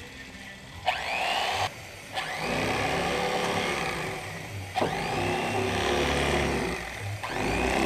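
Electric fillet knife running in about four bursts, each starting with a rising whine as the motor spins up, as it slices the red meat off a flathead catfish fillet.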